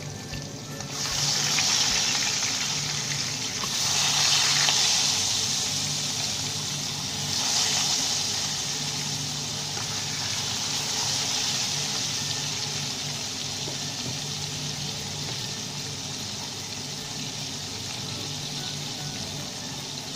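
Climbing perch frying in hot oil in a pan, a steady sizzle that swells sharply three times, about a second, four and seven seconds in, as more fish go into the oil, then settles.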